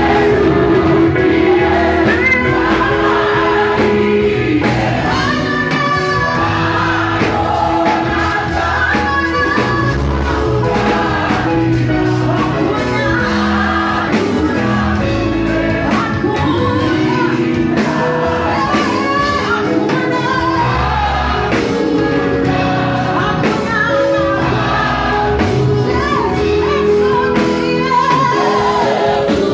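Live gospel praise music: a woman sings lead through a microphone over an amplified band with bass and drums, and the congregation sings along.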